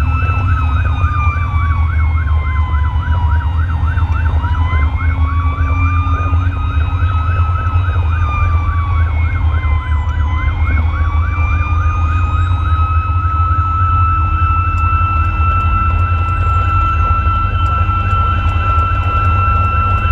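Fire engine responding with its sirens on: a slow wail falls and rises over a fast yelp. The yelp stops about nine seconds in, and the wail then climbs and holds one steady tone, all over a steady low drone of the truck's engine and road noise.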